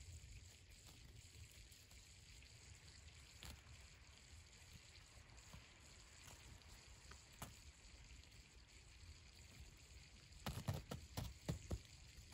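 Near silence with a faint low rumble, broken by a few faint clicks. About ten and a half seconds in comes a short run of soft thumps lasting about a second.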